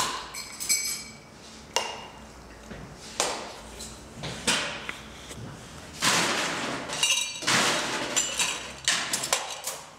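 Bar glassware and a metal cocktail shaker clinking and knocking on the counter: a few separate sharp knocks, then two longer rattling, clinking stretches in the second half.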